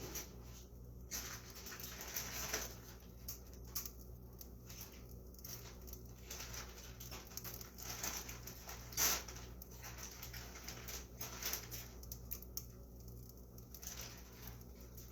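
Light kitchen clatter while cooking: scattered taps, clicks and scrapes of utensils and dishes, with one louder knock about nine seconds in, over a steady low hum.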